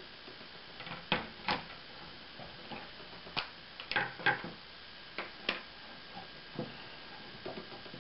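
Scattered sharp clicks and knocks of pushing the push pins back in to fasten a new E-Grip onto a Tippmann A5 paintball marker, with a cluster of taps about four seconds in.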